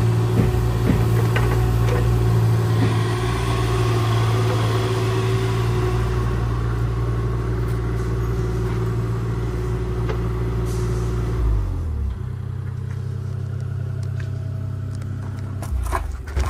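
Diesel engine of heavy construction equipment running steadily at working revs, then throttling down to a lower idle about twelve seconds in. A few knocks near the end.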